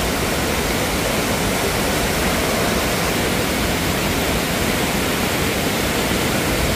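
Waterfall cascading over rocks: a steady, loud rush of falling water.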